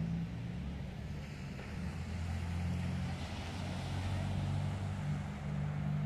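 A motor engine running, a low steady hum whose pitch shifts a little, over a wash of noise that swells about halfway through.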